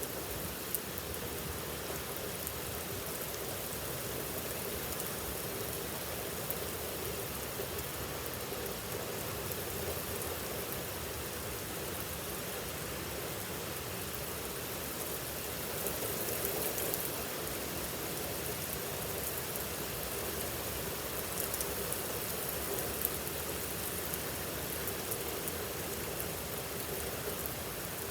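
Heavy rain falling steadily, a dense hiss of drops with fine patters, swelling slightly a little past the middle.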